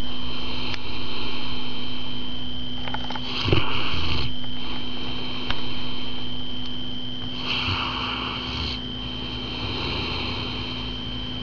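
Bullmastiff snoring in its sleep, with slow breaths a few seconds apart, over a steady background tone.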